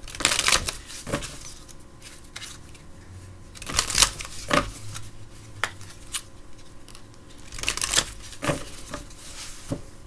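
A deck of oracle cards being shuffled by hand. The cards slide and slap together in three short bursts of quick strokes, near the start, about four seconds in and about eight seconds in, with a few single card clicks between.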